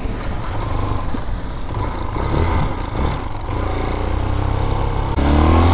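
Vitacci Bashan BSR Raven 250 motorcycle engine running as the bike is ridden, a steady low hum that grows louder near the end as it picks up speed. The engine is running smoothly, its rough idle cured by reconnecting a vacuum hose that had popped off.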